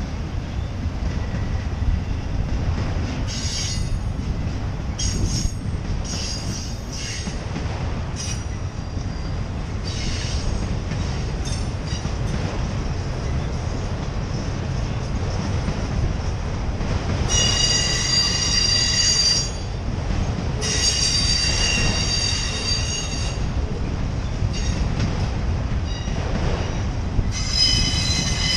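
Empty autorack freight cars rolling slowly past with a steady low rumble of steel wheels on the rails. High-pitched metal wheel squeals break in, short ones in the first few seconds and three longer ones of two to three seconds each in the second half.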